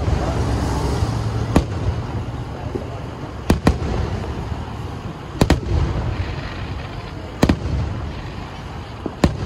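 Aerial fireworks shells bursting at a distance: about seven sharp booms at uneven intervals, two of them coming as quick pairs, over a steady low rumble.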